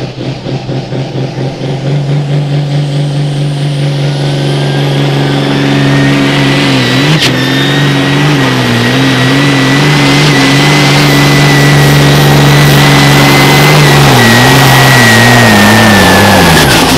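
A hot farm pulling tractor's diesel engine, an International, dragging the weight-transfer sled down the track under full load. It pulses briefly at the start, then climbs to full revs and holds there with a high whine above it, sagging in pitch a few times as the load bites. A sharp crack comes about seven seconds in, and the revs fall away at the very end.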